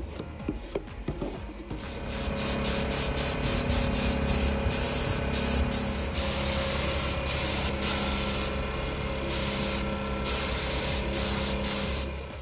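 Gravity-feed compressed-air spray gun hissing as it sprays finish onto wood, with many brief breaks as the trigger is let off and pulled again. The hiss starts about two seconds in and stops just before the end.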